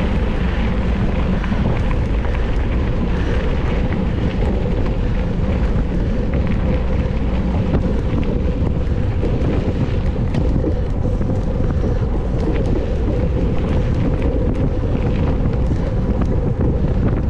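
Wind rushing over the camera's microphone while a mountain bike is ridden fast, with a steady rumble of tyres on the track and scattered light rattling clicks.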